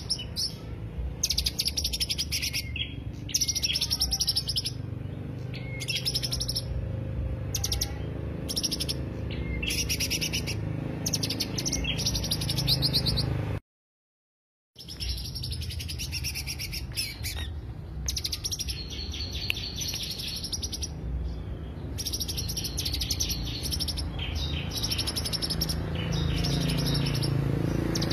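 Green leafbird (cucak hijau) singing in short, rapid, high-pitched chattering phrases, one after another with brief pauses, over a low steady rumble. About halfway through the sound drops out completely for about a second.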